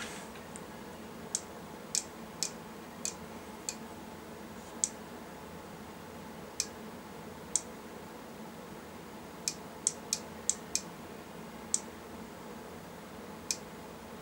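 About fifteen sharp clicks at uneven intervals during a PAT test of a metal-cased power supply, with the tester's probe held against the chassis; a cluster of quick clicks comes about two-thirds of the way through.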